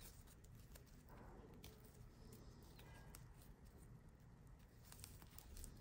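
Near silence with faint scattered ticks and rustles of paper yarn being pulled through stitches with a crochet hook.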